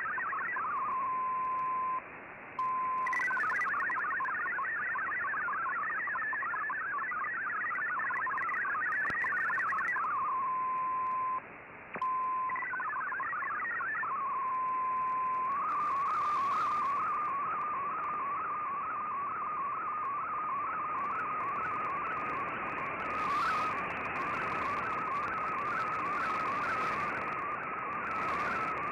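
MFSK64 digital data from a shortwave broadcast on an Icom IC-R8600 receiver: a fast jumble of hopping tones, broken twice by a brief steady single tone and a short dropout. About halfway through it changes to the steady, regularly warbling tone of an MFSK picture transmission. Shortwave static hiss and occasional crackles lie underneath.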